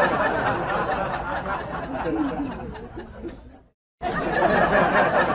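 Many people chattering and laughing together in a dense crowd babble. It fades and drops out about three and a half seconds in, then starts again a moment later.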